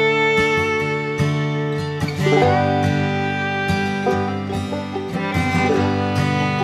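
Background music: acoustic string-band tune with guitar and banjo picking and long held melody notes.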